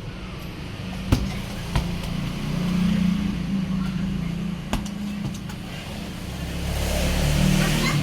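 A motor vehicle engine running close by, its sound swelling toward the end as it passes, with three sharp thuds of a football being kicked, about one, two and five seconds in.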